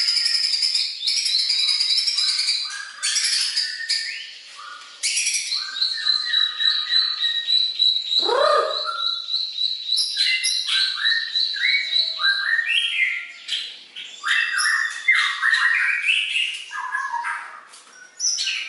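White-rumped shama (murai batu) singing a long, varied song of quick whistled and chattering phrases, including a fast string of repeated high notes through the middle and one falling swoop about eight seconds in. The song is filled with mimicked calls of other songbirds (kapas tembak, cililin, canary).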